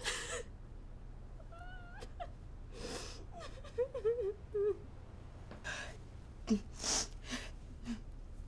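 A woman crying quietly: short, wavering whimpering sobs broken up by sharp sniffs and shaky breaths.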